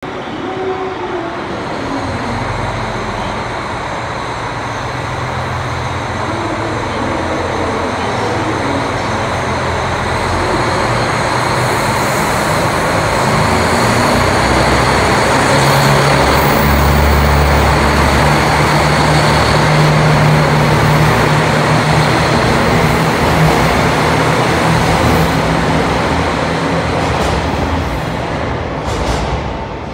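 JR Hokkaido KiHa 261 series diesel multiple unit pulling out of a station, its diesel engines running under power as the cars pass close by. It is loudest about halfway through, then fades near the end as the train moves away.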